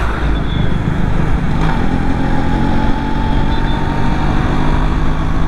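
Yamaha RX135's two-stroke single-cylinder engine running at a steady cruise under a continuous rush of road and wind noise, heard from on the bike. A bus is running close alongside at the start.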